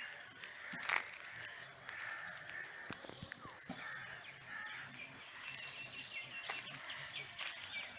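Birds calling outdoors: repeated harsh calls about once a second, with a few higher, whistled notes in the later part.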